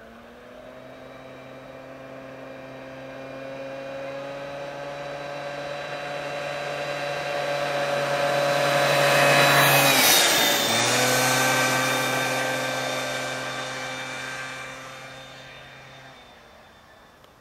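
Peugeot Elyseo 50 scooter's 50 cc two-stroke engine running at a steady speed as the scooter rides toward and past. It grows louder to a peak about ten seconds in, its note drops in pitch as it passes, and then it fades away.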